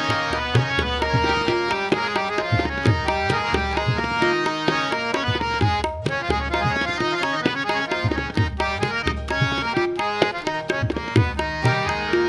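Instrumental break in a Punjabi devotional song: harmonium playing a melody over a steady tabla rhythm, with deep bass strokes from the tabla's larger drum. No singing.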